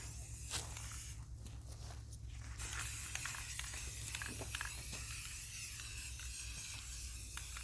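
Aerosol spray paint can hissing in a burst of about a second and a half, starting about a second in, then fainter spraying with a few small clicks, over a steady low hum.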